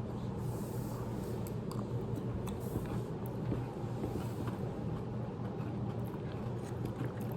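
Quiet eating sounds: faint scattered clicks of a fork on a plate and chewing, over a steady low hum.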